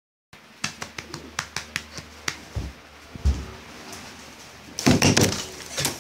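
A run of about nine sharp clicks over two seconds, then two low thumps and, near the end, loud scuffling as the phone camera is swung about.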